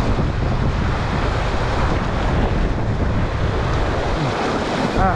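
Wind buffeting the microphone over the steady wash of waves on the shore.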